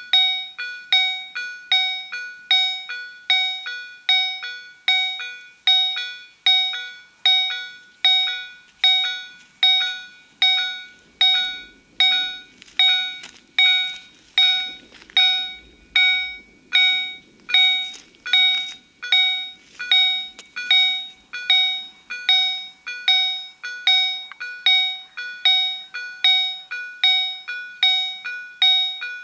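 EHL-S10 level-crossing warning bells of a COB-63A ZWUS crossing system ringing steadily, a struck metallic bell tone repeating nearly twice a second: the crossing's warning is active for an approaching train. A faint low rumble comes in underneath about a third of the way in and fades again.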